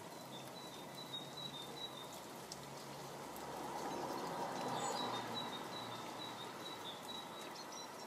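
Steady rain hiss with scattered drips, and faint series of short, high bird notes early on and again in the second half. A broad rise in the noise peaks about four to five seconds in.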